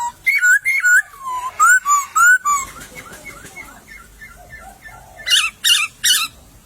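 Poksay (laughingthrush) singing loud, slurred, whistled notes that rise and fall, a phrase of about six notes in the first two and a half seconds. A softer run of short notes follows, then a quick burst of sharp, high notes near the end.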